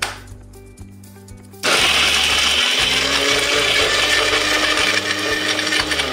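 Electric mixer grinder switched on about a second and a half in, running steadily at full speed as its blades grind tender coconut flesh and cashews without water into a coarse paste.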